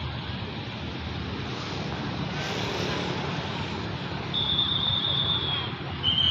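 Low, steady rumble of a GE GEA-class diesel-electric locomotive approaching slowly, with a long, shrill whistle blast about four seconds in and another starting at the very end.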